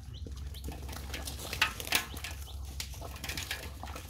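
Hands sloshing and splashing in shallow muddy water while groping for fish, with two sharper splashes about one and a half and two seconds in.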